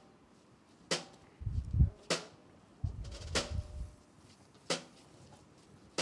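A single procession drum struck in a slow, steady beat, about one stroke every second and a quarter, with a short ring after each stroke. Twice between the beats, at about one and a half and three seconds in, a deep rumble comes up, the first the louder.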